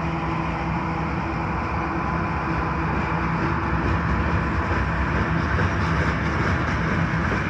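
Train rolling past with a steady rumble and hiss from the wheels on the rails.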